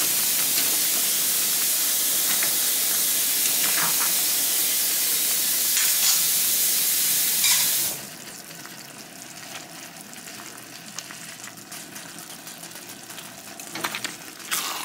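Chicken and broccoli stir-frying in a hot wok: a loud, steady sizzle that drops suddenly to a much quieter sizzle about halfway through, with a few short clicks near the end.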